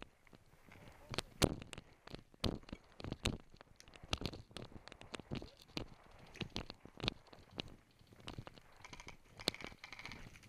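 Footsteps on gravel and dirt, with heavier steps among many irregular sharp clicks and knocks.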